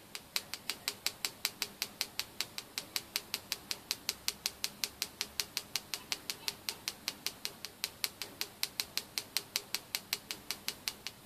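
Rapid, even light tapping of a pen on the aluminium frame of a magnetic balancing jig, about five sharp ticks a second. The tapping frees the last bit of bearing friction so the spinning-down compressor wheel can settle with its heavy spot at the bottom.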